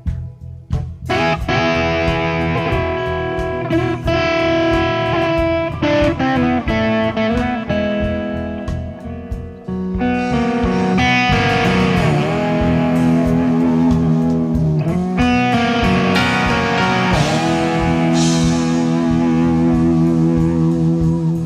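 Rock fusion band playing an instrumental with an electric guitar lead over bass, drums and keyboards. The guitar plays long held notes with pitch bends. After a brief drop the band comes back in about a second in, and the playing grows denser and louder about ten seconds in.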